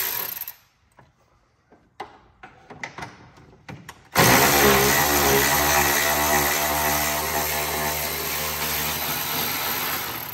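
Cordless electric ratchet running: a run that stops about half a second in, a few light clicks, then a long steady run of the motor starting suddenly about four seconds in.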